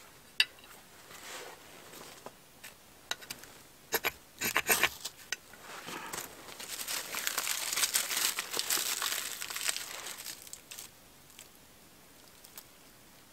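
Dry tinder and kindling being handled for a campfire: a few sharp snaps and clicks in the first five seconds, then a longer spell of crinkling and crumpling from about six to ten seconds in.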